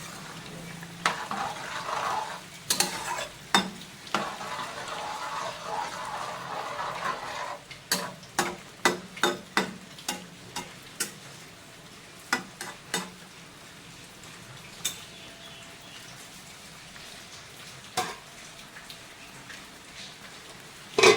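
Bottle gourd curry being stirred in a pan with a spatula, sizzling at first, then a quick run of spatula knocks against the pan, then only a few single knocks.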